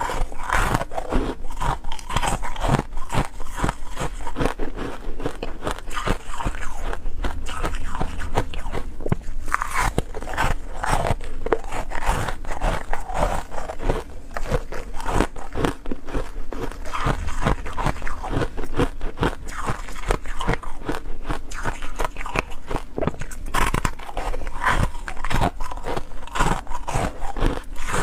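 Close-up crunching of ice being bitten and chewed: a dense, irregular stream of crisp cracks and crackles.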